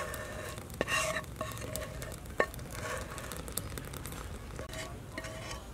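Thick dark sauce pouring from a pan into a ceramic bowl in a steady noisy trickle, with two sharp clicks, about one and two and a half seconds in.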